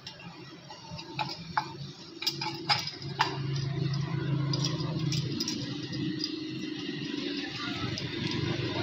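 Light metallic clicks and clinks as diesel injection pump parts are handled, several in the first three seconds or so. About three and a half seconds in, a steady low engine hum comes up under them.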